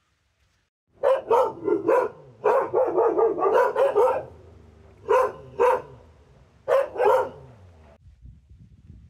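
Dog barking: a fast run of barks for about three seconds, then two pairs of barks.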